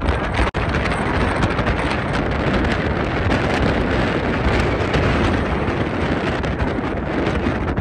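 Steady wind buffeting the microphone, a loud rushing noise with a brief dropout about half a second in.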